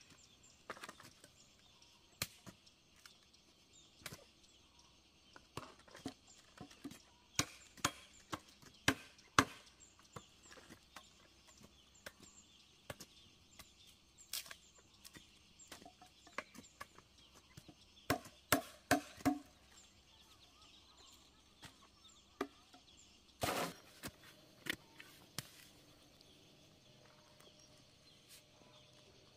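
Irregular sharp knocks of a hoe and a wooden pole striking and breaking into hard, stony earth while digging holes, with a longer scrape of soil a little past two-thirds of the way through.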